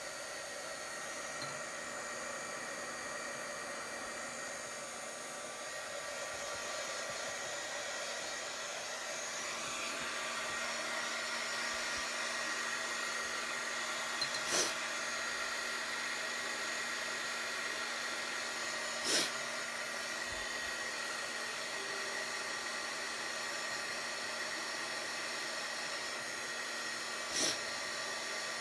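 Hand-held hair dryer running steadily with a blowing noise and a faint motor whine, drying wet watercolour paint. Three short taps or clicks sound over it, a few seconds apart.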